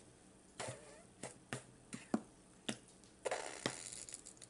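A few sharp clicks and taps of handling, then a squeezed ketchup bottle sputtering for about a second near the end, a rude-sounding splutter of air and sauce.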